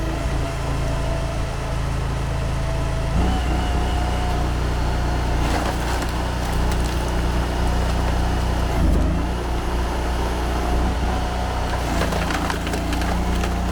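Honda GX800 25 hp V-twin engine running a box-wedge log splitter, its note shifting about three seconds in and again near the middle as the hydraulics take load. Oak cracks and splinters through the box wedge around six seconds and again near the end.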